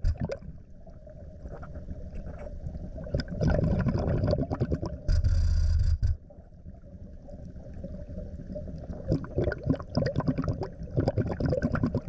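A scuba diver breathing underwater through a regulator: a hiss of about a second from the regulator near the middle, with gurgling exhaled bubbles and scattered clicks and rumble around it.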